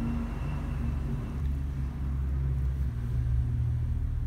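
A low, steady rumble, a little louder in the middle.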